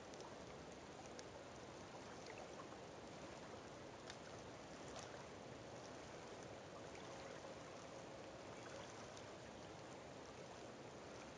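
Faint lakeshore ambience: a steady low hiss of water at the shoreline with scattered small ticks and drips.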